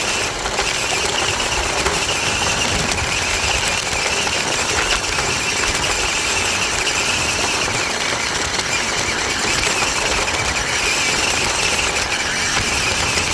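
Toy-grade New Bright Chevrolet 4x4 RC truck driving, heard from a camera mounted on the truck itself: the electric motor and plastic gearbox give a steady high whine over a rough rumble and rattle from the wheels and chassis running over the ground.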